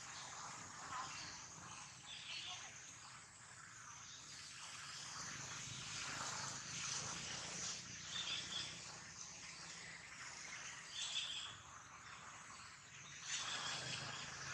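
Outdoor forest ambience: a steady hiss of wild sound with a few short, higher chirps and a louder swell near the end.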